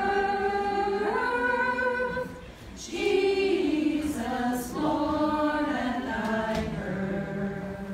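A group of women singing a Christmas carol a cappella, with long held notes and a short break for breath about two and a half seconds in.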